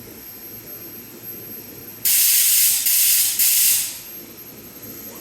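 A loud hiss bursts from beneath a stopped E233-series electric train car, coming in three quick pulses over about two seconds and then cutting off.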